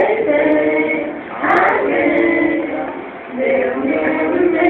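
Young men singing together in drawn-out, held notes.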